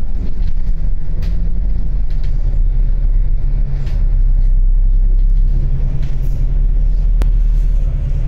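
Bus engine running with a steady low rumble, heard from inside the passenger cabin, with faint rattles and one sharp click about seven seconds in.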